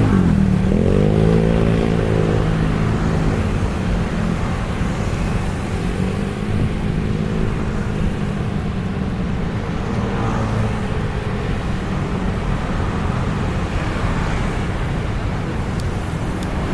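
Road traffic: engines of passing motor vehicles over steady road noise. About a second in, one engine's note drops and then rises again, and a steadier engine note follows.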